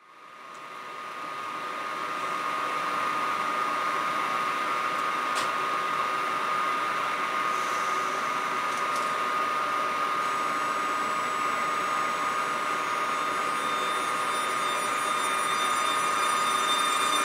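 Newag Griffin EU160 electric locomotive standing under power, its cooling blowers and converters giving a steady hum with a high whine; it fades in at the start. Higher steady tones join toward the end as it starts to pull the train away.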